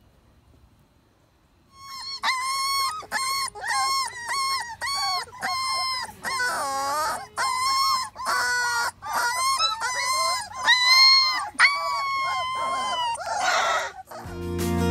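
A puppy whining and crying in a run of short, high-pitched cries, about two a second, starting about two seconds in. Music begins just at the end.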